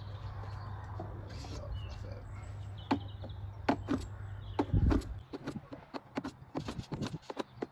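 A steady low hum that stops with a thump about five seconds in, then a run of irregular small clicks and knocks of hands handling things on a bench.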